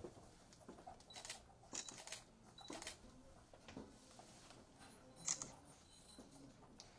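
A handful of faint, irregular camera-shutter clicks in a quiet small room, along with soft pen-on-paper and paper-handling noises.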